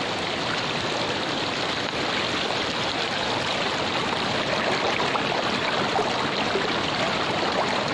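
Shallow mountain stream flowing over rocks and stones, a steady rush of water close to the microphone.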